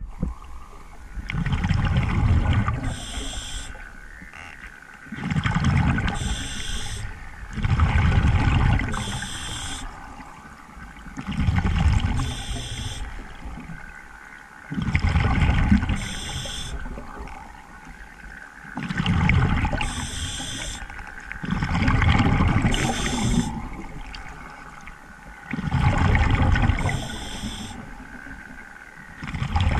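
Scuba diver breathing through a regulator: a rumbling gush of exhaled bubbles, then a short hiss of inhaled air, repeating every three to four seconds, about eight breaths.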